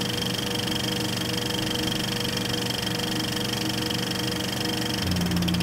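Film projector running: a steady mechanical whir with a fast, even clatter.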